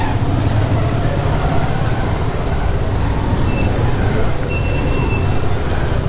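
Motorcycle engine running steadily at low speed, a continuous low rumble picked up close to the bike, with street noise around it.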